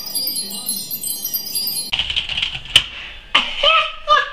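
A short tinkling chime-like sound effect with rapid light ticks, cut off about two seconds in. It is followed by room noise, a sharp click and a man's laughing voice.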